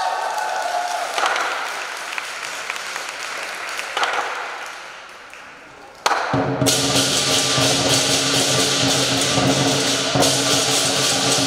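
Live southern lion dance percussion of drum, cymbals and gong. A few sparse strikes die away over the first six seconds, then about six seconds in it breaks suddenly into a loud, rapid drum roll with clashing cymbals and ringing gong.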